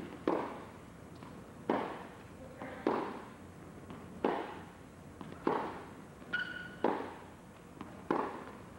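Tennis ball struck back and forth with rackets in a fast baseline rally: seven sharp hits about 1.3 seconds apart, with softer ball bounces between them. A brief shoe squeak on the court about six and a half seconds in.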